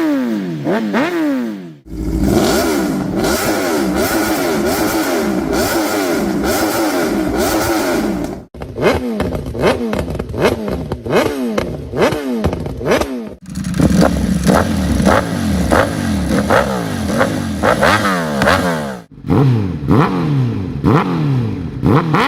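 Motorcycle engine on its stock exhaust being revved over and over in quick throttle blips, each rising in pitch and dropping back, about two a second. The sound breaks off and changes abruptly a few times.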